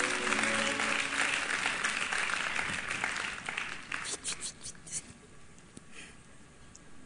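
Audience applauding, thinning to a few scattered claps about four to five seconds in and then dying away. The last notes of background music fade out at the very start.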